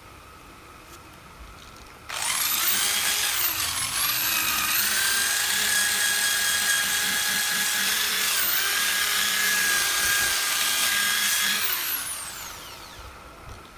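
Corded electric drill fitted with a wire cup brush spinning up about two seconds in and scrubbing rust off a steel car wheel. Its steady whine dips twice, then winds down near the end.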